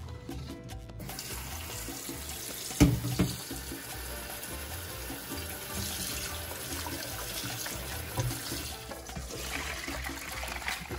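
Kitchen tap running into a stainless steel bowl of shredded radish being rinsed by hand, with one sharp knock about three seconds in. Near the end, water is poured from the bowl through a metal colander. Background music plays throughout.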